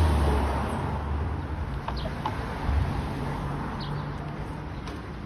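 Street noise: a low rumble that fades over the first second or so, with a few short high chirps later on.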